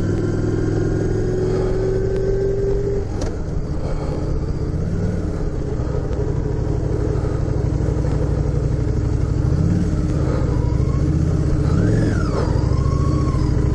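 Honda Shadow 750's V-twin engine running steadily as the motorcycle rides slowly, its pitch dipping and rising a little with the throttle.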